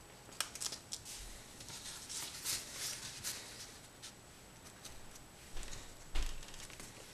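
Masking tape being handled and pressed down along a steel music-wire rod lying on a paper pattern: soft rustling and crackling with scattered light clicks.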